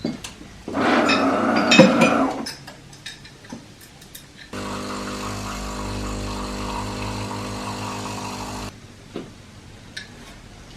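A brief rushing noise, then a small electric motor runs steadily for about four seconds, switching on and off abruptly.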